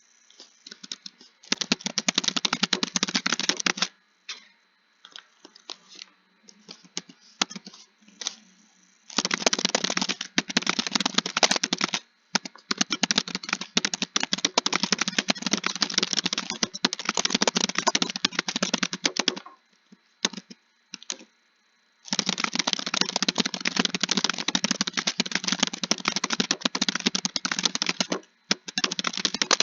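Computer keyboard typing: fast runs of keystrokes lasting several seconds each, broken by pauses with only a few scattered key presses. The longest run comes in the middle.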